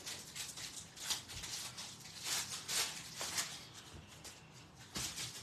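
Foil wrapper of a hockey card pack crinkling and tearing as it is opened by hand: a run of short, crackly rustles.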